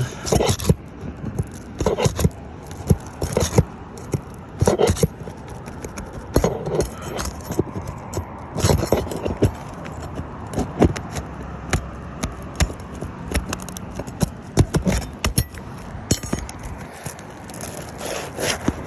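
Irregular metal clinks and scrapes of a hand tool prying nails out from under old, brittle asphalt shingles, with the stiff shingles scraping and crackling.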